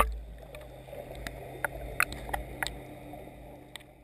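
Muffled underwater sound heard through a GoPro's waterproof housing just below a boat hull: a steady low rumble with a faint constant hum and about half a dozen sharp clicks.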